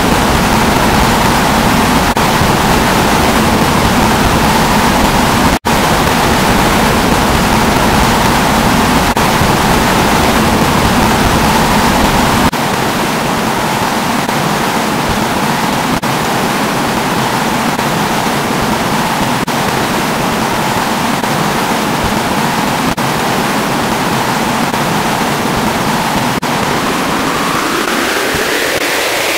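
Loud, steady synthesized noise like a rushing static roar, with a faint steady hum under it. The deepest part drops out about halfway through, and near the end a rising whine sweeps upward.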